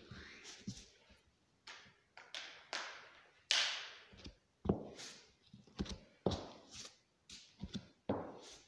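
Uneven footsteps on a bare wooden floor, one foot in a high-heeled pump and the other in a strap sandal, mixed with rubber crutch tips knocking. They come as irregular thuds and taps with short scuffs, the loudest a scuff about three and a half seconds in.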